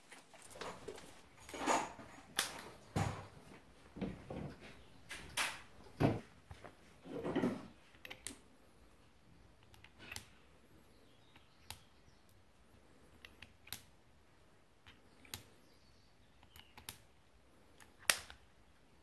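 Handling and loading noises of a Ruger Super Redhawk revolver: a run of knocks and clatter, then sparse light metallic clicks as .44 Magnum cartridges go into the cylinder, with one sharper click near the end.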